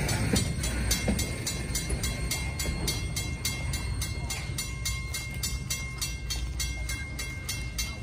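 Railroad grade-crossing bell ringing in rapid, even strikes over the low rumble of a freight train moving away, the rumble slowly fading.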